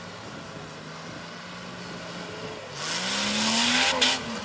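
Off-road 4x4's engine running steadily, then revving up with a rising pitch about three seconds in, together with a loud rushing noise. A sharp knock near the end as the revs drop.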